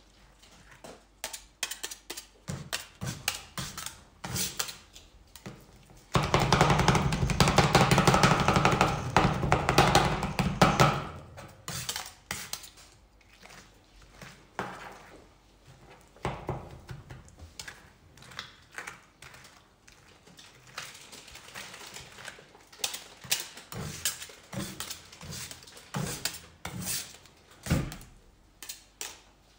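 Two metal spatulas chopping and scraping ice cream and pizza pieces on a steel ice-roll cold plate: quick clicks and taps of steel on steel. From about six to eleven seconds in, a much louder, dense sound takes over.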